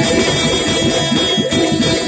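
Live stage band music played loud over a PA: an instrumental break with a fast, plucked-string-sounding melody of quick short notes over a steady beat, and no singing.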